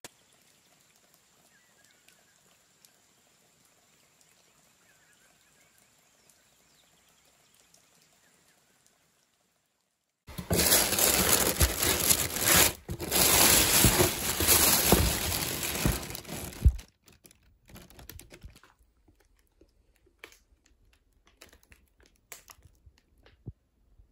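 Near silence for about ten seconds, then loud crinkling and rustling for about six seconds as mesh-textured pads are handled close to the microphone, ending abruptly and followed by scattered soft clicks and rustles.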